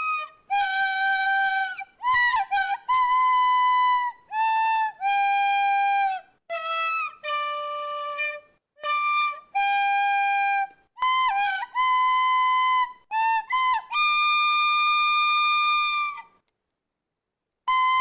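Solo flute playing a slow melody of separate held notes, some sliding into their pitch. It ends a phrase on a long held note, stops for about a second, then starts again near the end.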